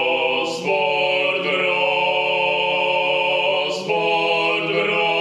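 Outro music of long held chords, shifting to a new chord twice, under a second in and about four seconds in, each change led by a short rising hiss.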